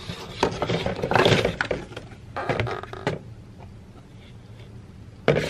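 Crinkling and rustling of plastic meal pouches being pulled out of a cardboard box, in two bouts of handling. A single sharp knock comes just before the end.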